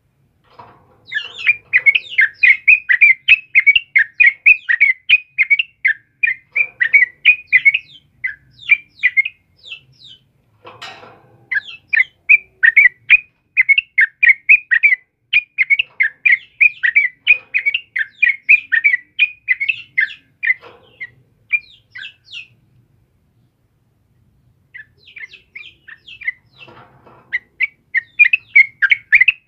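Yellow-vented bulbul (trucukan) singing a fast, dense string of short chirps, several a second, in long unbroken runs. It pauses for about two seconds about three quarters of the way through, then starts again.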